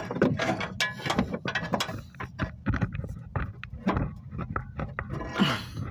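Irregular metal clicks, knocks and scraping as a large screwdriver pries the lower control arm of a 2016 Dodge Journey out of its mount.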